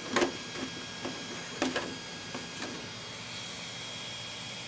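A few light knocks and rustles of objects being handled on a desk, three or four short strokes in the first few seconds, over a faint steady hum.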